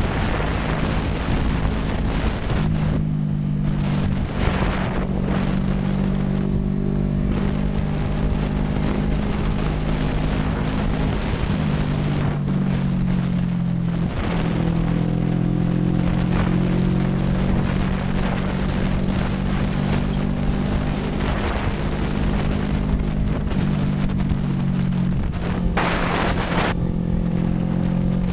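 CFMoto NK400 motorcycle's parallel-twin engine running under way, its note stepping in pitch a few times as the speed changes, with wind rushing over the microphone. A brief louder rush of wind noise comes near the end.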